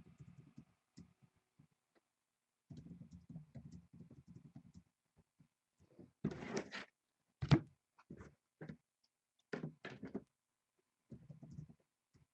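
Handling noise at a table, with dull low rustling and shuffling. Over the second half comes a series of sharp knocks and thunks, the loudest about halfway through.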